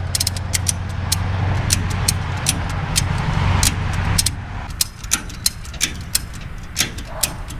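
A vehicle engine idling with a steady low hum that drops away about four seconds in, with many sharp, irregular clicks throughout.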